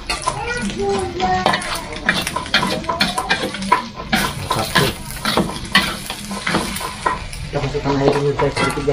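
Metal spatula scraping and clanking against an aluminium wok as eggs are scrambled, the eggs sizzling in hot oil. The strokes come fast and uneven.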